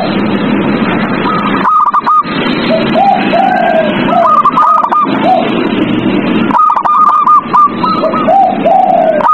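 Zebra doves (perkutut) cooing. Phrases of several quick, higher staccato coos alternate with lower, drawn-out coos, repeating every couple of seconds over a steady background hiss.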